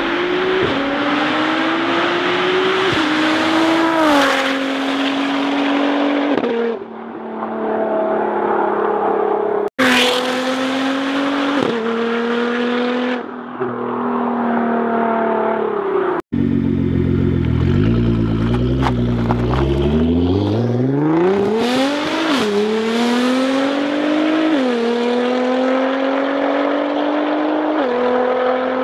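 Tuned 2009 Nissan GT-R's twin-turbo V6 with a full Armytrix exhaust accelerating hard: the engine note climbs and drops sharply at each upshift, with a few sharp cracks at gear changes. The sound breaks off abruptly twice and picks up on a new pass.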